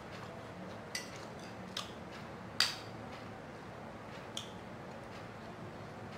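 Light clinks of a spoon against a plate and of a glass being handled during a meal: four short, sharp clicks, the loudest about halfway through, over a faint steady room hum.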